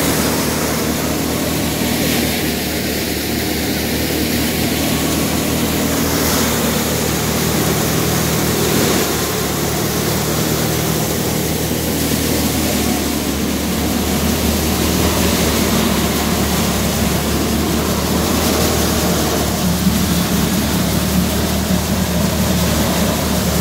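Multicrop thresher running steadily while threshing paddy: a loud continuous mechanical din over a steady low hum.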